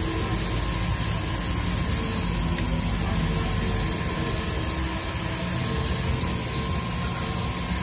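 Pantograph engraving machine's high-speed spindle running steadily as its cutter engraves letters into a metal name plate: a constant whine over an even hiss.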